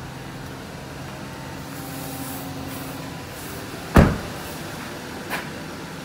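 Steady low vehicle hum inside a car, with one loud thump about four seconds in and a lighter click about a second later.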